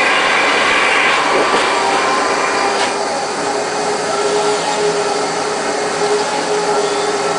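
Household vacuum cleaner running steadily, its motor note shifting about a second in and then holding a steady hum, with one brief click near three seconds.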